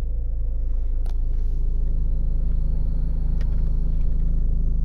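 Ford Mondeo Mk5's engine idling, heard inside the cabin as a steady low hum, with a faint click about a second in and another a little over three seconds in.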